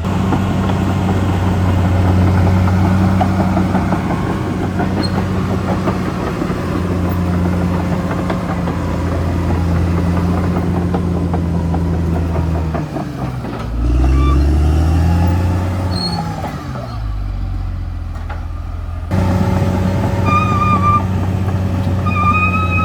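Caterpillar D6R crawler bulldozer's diesel engine running steadily under load, with dense clanking from its steel tracks. About two-thirds of the way through the engine revs up and settles back, and the sound changes abruptly near the end.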